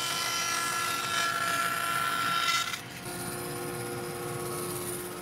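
Laguna bandsaw ripping a small wooden pencil blank in half. The cut ends about three seconds in, and the saw keeps running more quietly with a steady hum.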